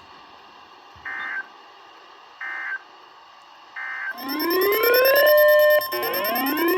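Emergency Alert System tones: three short bursts of data-burst header noise about a second apart, then the steady 1050 Hz warning alarm tone with a loud rising, siren-like sweep laid over it, sweeping up twice. Together they signal that a new weather warning is about to be read.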